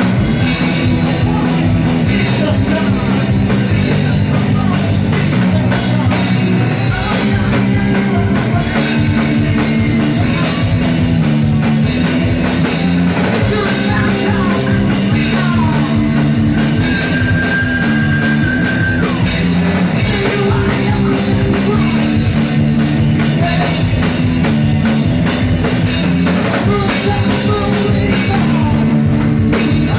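Rock band playing loudly: electric guitars, bass and drum kit with a steady beat, a lead line bending and holding high notes over it.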